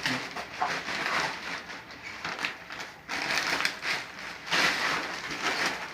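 Packaging crinkling and rustling in irregular bursts as a new bicycle tyre is pulled out of its wrapping, louder in the second half.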